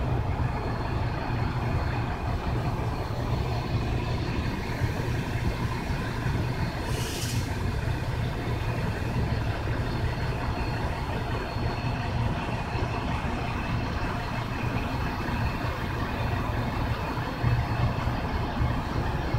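Steady low rumble with a faint high whine on and off, from the electric motor and propeller of a distant RC Piper J-3 Cub model airplane in flight. A short hiss about seven seconds in.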